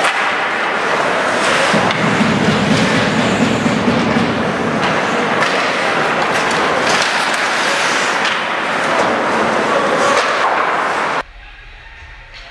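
Ice hockey game noise in a rink: a loud, continuous scraping hiss with scattered sharp knocks and slams, like sticks and puck hitting the boards. About eleven seconds in it cuts off abruptly to a quiet low hum.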